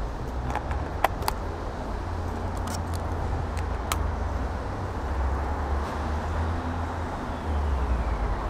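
City street traffic: cars going past, a steady hiss over a low rumble, with a few sharp clicks in the first four seconds.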